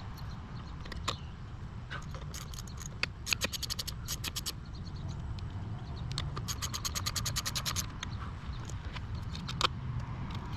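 Hand socket ratchet clicking in two runs of rapid, even clicks a few seconds apart, with a few single knocks, over a steady low rumble.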